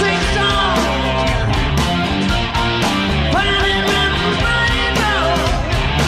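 Live blues-rock band playing: electric guitar lead with bent notes over bass and drums.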